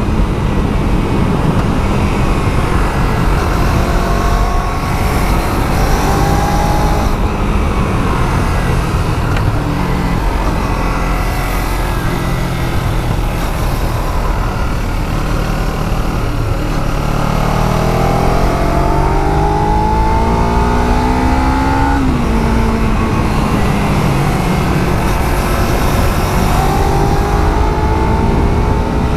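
Kawasaki Z300's parallel-twin engine with its stock exhaust, heard from the bike while riding: the engine pitch climbs under throttle and drops back at gear changes, with a long climb near the middle that falls sharply, over steady wind and road noise.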